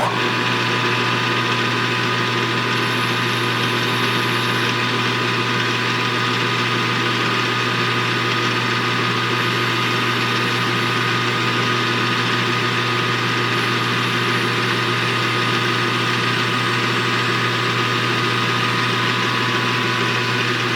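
Metal lathe running steadily with a hum and a whine, switched on sharply at the start and running down just after the end, while a parting-off cut is made.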